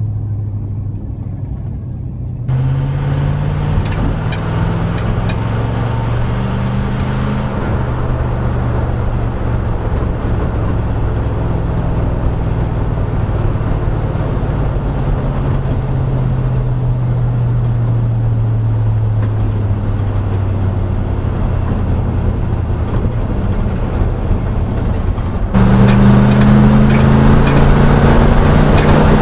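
The 5.3L LM7 V8 of a 1999 Chevrolet Silverado is running through a Cherry Bomb muffler while driving, giving a low, steady exhaust drone whose pitch slowly rises and falls. It jumps abruptly louder about two and a half seconds in, and again much louder near the end, with the pitch climbing.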